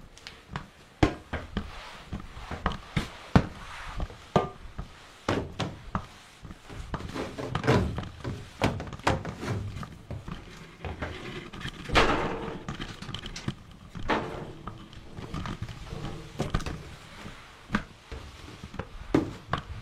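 Irregular knocks, clicks and thuds of hard objects being handled and set down, with the loudest knocks about a second in, a little over three seconds in, and about twelve seconds in.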